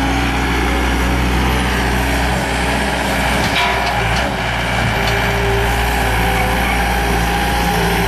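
Gehl 5640 skid steer loader's diesel engine running steadily under load while it works an FFC Preparator landscape rake through the soil, with tones from engine and hydraulics that shift in pitch about halfway through.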